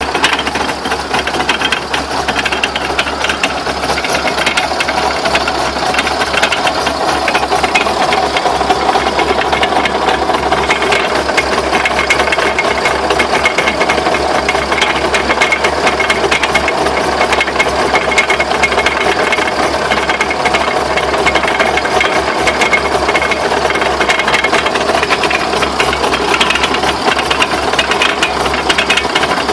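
Rapid, continuous knocking and rattling from a car's drivetrain, which the owner suspects comes from bent drive shafts.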